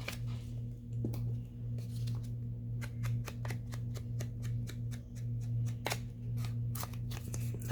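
Paper edges being scraped to distress them: a run of short, quick scratchy strokes, several a second, over a steady low hum.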